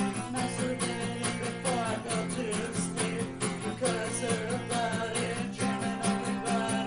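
Country-style music led by acoustic guitar, with a plucked, strummed rhythm and a melody line that bends up and down.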